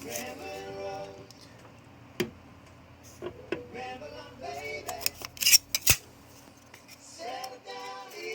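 Small metal parts being handled, giving a few sharp clicks and clinks.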